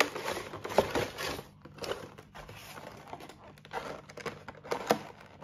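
Cardboard and clear plastic packaging of a Pokémon card collection box being handled and pulled open: irregular crinkling and crackling with a few sharper crackles.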